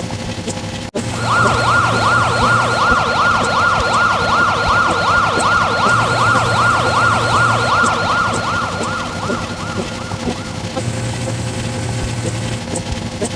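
Electronic siren in fast yelp mode: a quick rising-and-falling wail repeating about three times a second. It starts about a second in, right after a brief cutout, and stops near ten seconds, over a steady engine hum.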